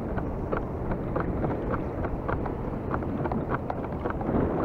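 Wind buffeting the microphone on a kayak at sea, with water lapping against the kayak's hull in small, irregular splashes and ticks.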